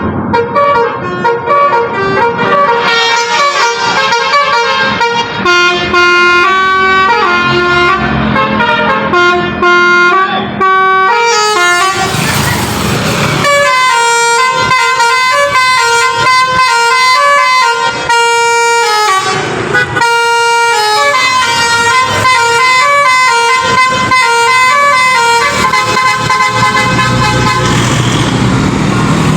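Basuri 'telolet' multi-tone bus horn playing a tune of held notes that step up and down in pitch, over and over, with two brief rushing sweeps partway through.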